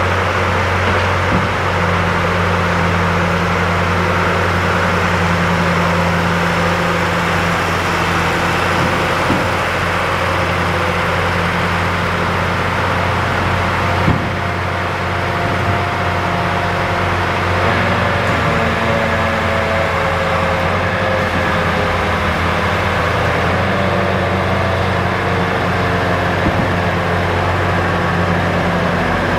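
A log loader's John Deere 6059T six-cylinder turbo diesel engine running steadily while the boom swings, with a higher whine that drifts in pitch and a few light knocks.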